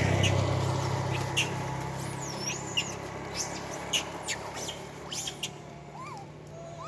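Scattered high chirps and squeaks, some gliding in pitch, with sharp clicks, over a low engine hum that fades away during the first few seconds.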